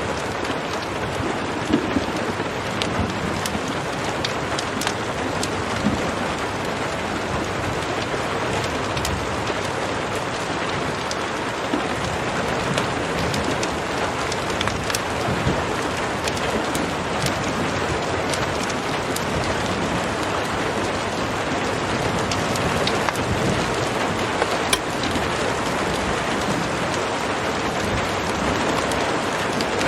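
Heavy rain falling steadily, with many sharp ticks scattered through it and a low thunder rumble underneath.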